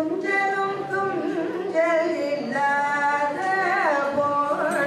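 A devotional song sung in a Carnatic style, a single voice holding notes and sliding smoothly between them. It starts suddenly at the outset.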